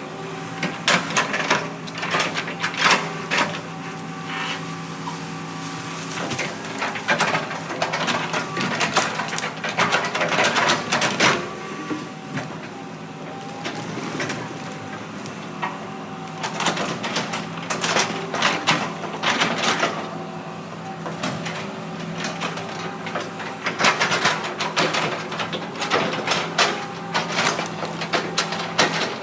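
Heavy earthmoving machine's diesel engine running steadily, with bursts of clanks and knocks in clusters through it.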